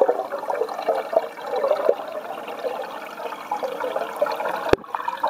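Water in a fish tank bubbling and gurgling steadily, with one sharp click near the end.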